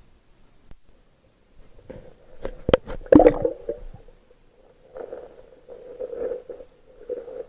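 Underwater sounds: several sharp clicks and knocks about two to three seconds in, then irregular bubbling gurgles.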